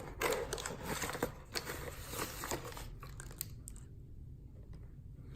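Packaging rustling and crinkling, with a few small clicks, as a knife package is unwrapped; it goes quieter in the second half.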